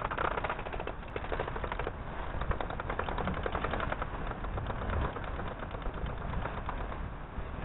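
A rapid, uneven mechanical rattle made of many small clicks and knocks.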